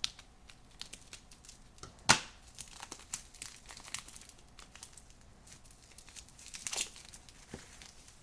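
Plastic packaging crinkling and crackling as it is handled and pulled open, with one sharp snap about two seconds in and another burst of crinkling near the end.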